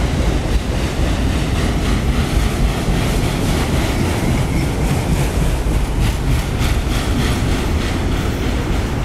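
Freight train of enclosed autorack cars rolling past close by: a steady rumble of steel wheels on the rails, with a few wheel clicks over rail joints about two-thirds of the way through. Wind buffets the microphone.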